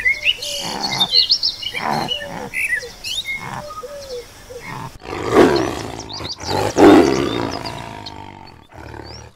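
Birds chirping over short falling calls repeated about twice a second, then a big cat roars loudly twice, about five and a half and seven seconds in.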